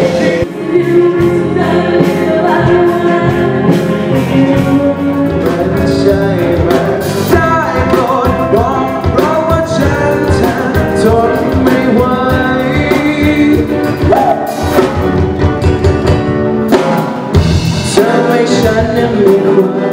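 A band playing a song live with a lead singer over a drum kit.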